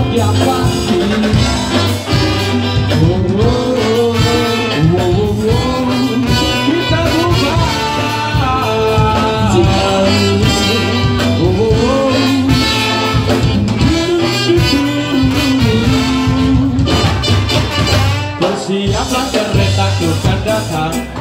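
Ska band playing live through a PA, with horns and a gliding melody line over steady bass and drums.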